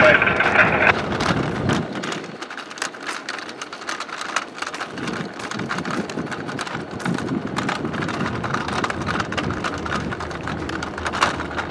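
Footsteps crunching on gravel and ballast with rustling handling noise from a carried camera: a dense patter of small irregular clicks.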